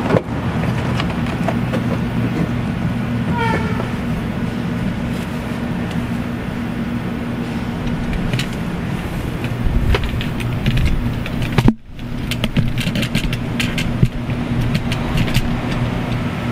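Plastic interior door trim panel of a Chevrolet Tahoe being pressed back onto the door, with a run of clicks and knocks as its clips seat, mostly in the second half. A steady low hum runs underneath throughout.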